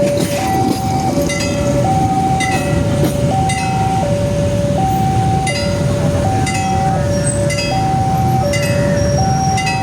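Two-tone electronic warning alarm, of the kind used at Indonesian railway level crossings, alternating a high and a low tone about once a second each. Under it, the rumble of a train passing slowly, with scattered light clanks.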